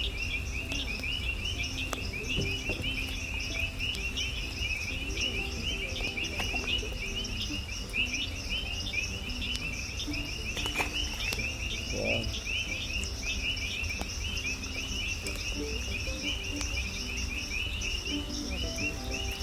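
A dense, unbroken chorus of insects chirping rapidly and evenly, with a low rumble of wind on the microphone beneath it.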